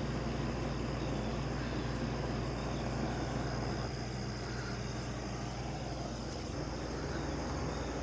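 1966 Admiral Royal 106 Series window air conditioner running on max, heard from its outdoor end: a steady low compressor hum under the even rush of the condenser fan.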